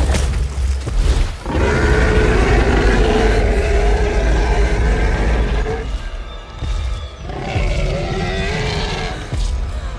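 Movie Tyrannosaurus rex roaring: two long, wavering roars, the first starting about a second and a half in and the second near the end, over a deep rumble and orchestral score. A heavy low hit at the very start.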